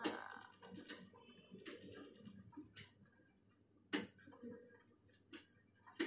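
A series of sharp, irregular clicks, roughly one a second, with faint low sound between them.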